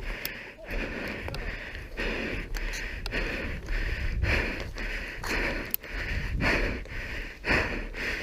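A player panting hard, short hissing breaths about twice a second, out of breath while carrying a heavy HPA airsoft rig.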